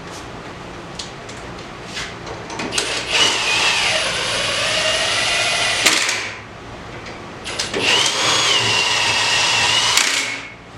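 A handheld power tool's motor runs twice for about three seconds each time. In the first run its whine sinks in pitch under load and then recovers.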